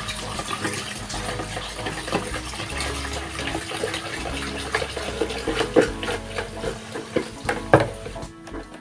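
Water poured in a steady stream from a plastic jug into a plastic measuring jug of milky lemongrass floor-cleaner mixture, with a few knocks as the mixture is stirred by hand. The pour stops near the end.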